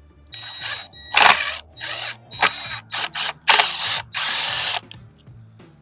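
Power drill driving out a screw from a fence picket in about eight short trigger bursts, stopping and starting. The screw is one that won't come out.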